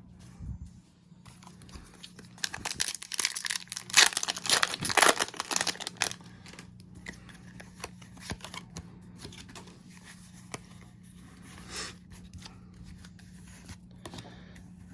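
Foil wrapper of a Pokémon trading-card booster pack being torn open, a loud crinkling rip lasting a few seconds, followed by light rustling and clicking as the cards are handled.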